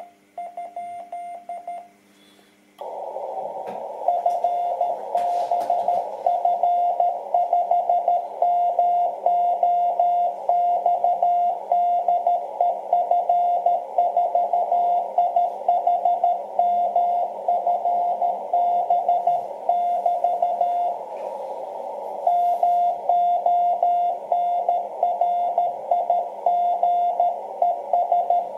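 Morse code (CW) beeping from a ham radio transceiver on the 30-metre band. First comes the clean keyed sidetone of the operator's own sending. After a short gap the receiver opens with a hiss of band noise, and the other station's Morse comes in strongly, sending steadily with a brief pause about 21 seconds in.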